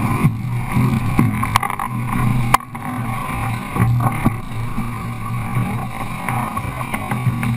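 Steady rushing wind and water noise aboard a sailing boat under way, with a couple of sharp knocks about one and a half and two and a half seconds in.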